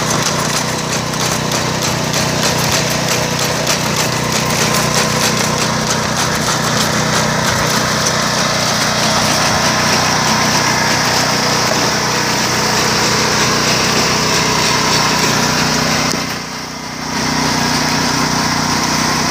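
Iseki PP4 riding rice transplanter's small engine running steadily. It goes briefly quieter for about a second near the end, then runs on as before.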